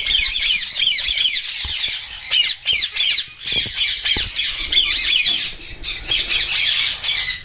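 Parrot chicks calling non-stop: many quick, high-pitched squawks and chirps overlapping each other, with only brief pauses.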